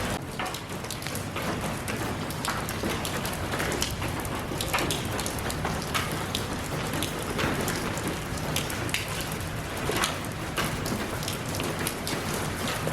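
Steady rain falling, with many separate drops tapping sharply on a surface close by.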